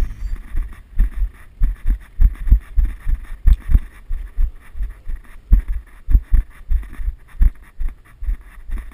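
Footsteps of someone walking on foot with a body-worn action camera: dull thumps about twice a second, each step jolting the camera.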